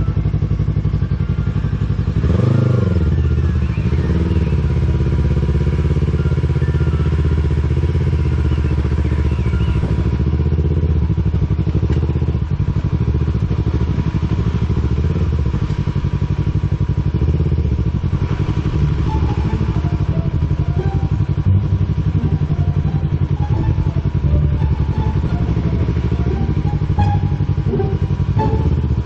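Sportsbike engine running at low speed on a rough dirt road, with a brief rise and fall in revs about two and a half seconds in.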